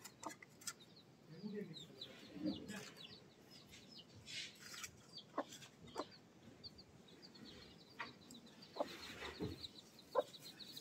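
Hen clucking softly in low notes a few times, mostly early and again near the end, while her newly hatched chicks peep in a steady run of short, high cheeps.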